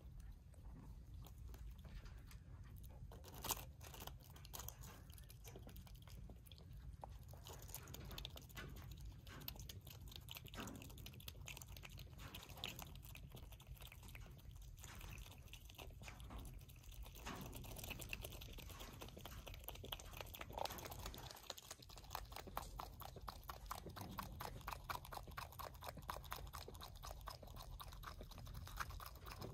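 A skunk biting and gnawing at the shell of a whole egg: faint clicks and crunches of teeth on eggshell, with one sharper click early on and the clicks coming thick and fast through the second half.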